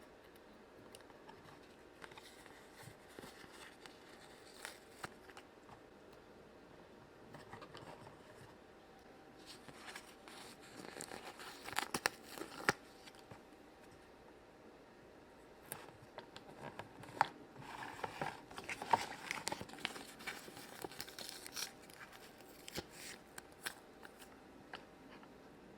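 Stickers being peeled off their backing sheet and pressed onto a plastic toy castle: faint crinkling, tearing and small clicks, busiest about ten seconds in and again from about seventeen seconds.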